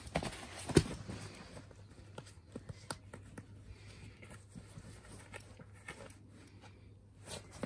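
Dachshund puppy tossing and dragging a rubber-soled boot over a blanket and into its bedding: scattered thumps and rustling of fabric, the loudest thump about a second in.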